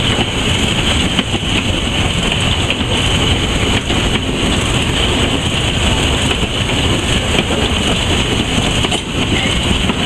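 Steam locomotive running under way, heard from the footplate: a loud, steady running noise with no pauses.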